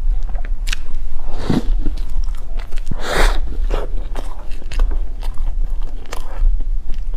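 Close-miked chewing of a crumbly chocolate bread, with soft crunches and wet mouth clicks, and a louder crackling burst about three seconds in. A low steady hum runs underneath.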